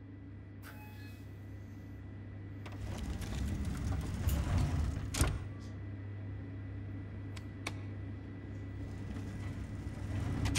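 Film opening sound design: a steady low hum with a faint high tone, a swelling rush of noise about three to five seconds in, and several sharp clicks, the loudest about five seconds in.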